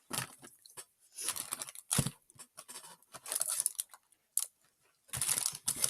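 Plastic snack wrappers crinkling and rustling as packets are handled, in irregular bursts with sharp crackles.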